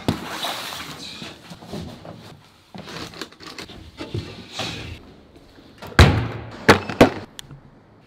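Shuffling and rustling, then a few sharp knocks about six to seven seconds in as a wooden door is shut and latched.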